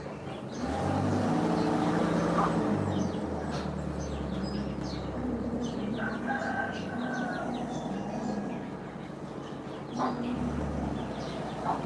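Bird calls, with many short chirps throughout and a longer held call about six seconds in. A low drone sounds under them for the first few seconds and is the loudest part.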